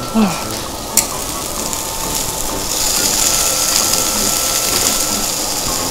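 Steady sizzling hiss of food on a tabletop charcoal grill, growing stronger a little before the middle, with a short vocal huff from someone eating a too-hot mouthful near the start and a sharp click about a second in.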